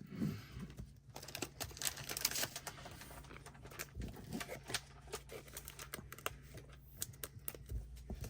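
Trading cards and plastic card sleeves being handled: a string of light clicks and taps, with a brief crinkle of plastic about two seconds in.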